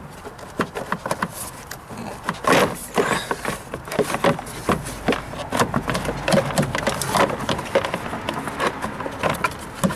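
Plastic airbox housing being pulled and worked loose from its mounts: irregular clicks, knocks and scraping of hard plastic against plastic and metal, busier from a couple of seconds in.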